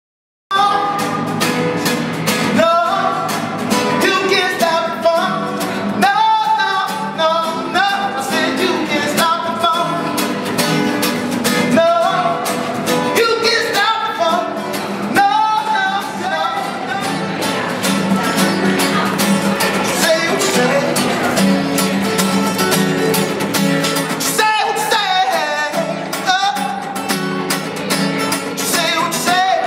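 A man singing with a strummed acoustic guitar, cutting in suddenly about half a second in.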